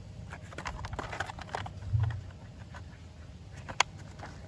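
Plastic toy car body and chassis being handled and pressed together by hand: small scattered clicks and scrapes of plastic on plastic, a dull low thump about two seconds in, and one sharp click near the end.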